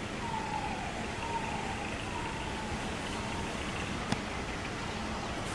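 Faint falling wail of a distant siren, heard twice in the first three seconds over a steady background rumble and hiss, with a sharp click about four seconds in.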